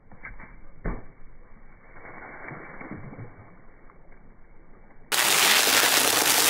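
A car tyre rolling over a milk carton, which bursts with a sharp pop about a second in, followed by faint scuffs and splatter. About five seconds in, a much louder steady rushing noise starts abruptly.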